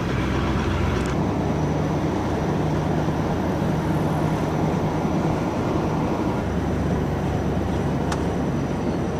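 Steady engine and road noise of an old pickup truck driving along, heard from inside its cab: an even low hum under a rushing hiss.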